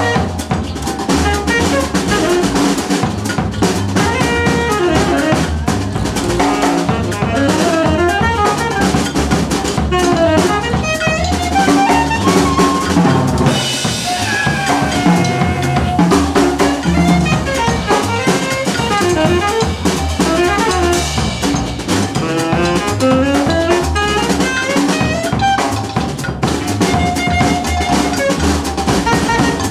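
Live jazz band playing, with the drum kit to the fore (snare, rimshots, bass drum). Under it runs a bass line, and over it a wind instrument plays quick melodic runs.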